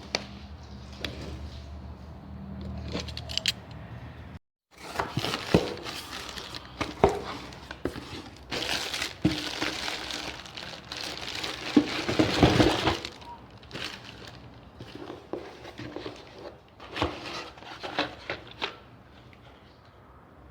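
Boxes of rifle ammunition being handled and opened by hand: packaging rustling and scraping, with many sharp clicks and clinks as the cartridges are moved. The handling is busiest a little past the middle.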